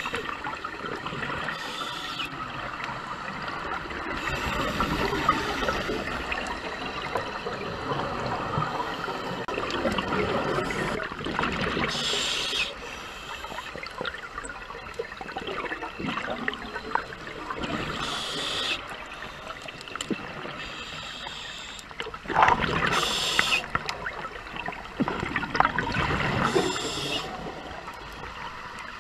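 Scuba diver's regulator breathing heard underwater through a GoPro housing, with exhaled bubbles gurgling and rushing past in bursts every four to six seconds.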